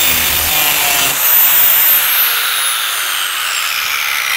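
Angle grinder grinding the cutting edge of a mower blade clamped in a sharpening jig, a high motor whine over grinding noise. About a second and a half in, the grinder is switched off and its whine falls steadily as the disc spins down.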